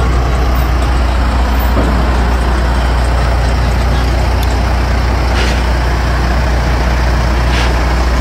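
Peterbilt 379 semi-truck's diesel engine running with a steady deep drone, heard close up beside the truck.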